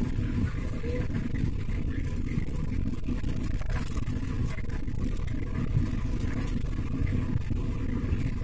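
Steady low road and engine rumble inside the cabin of a vehicle travelling along a highway, with a few faint clicks.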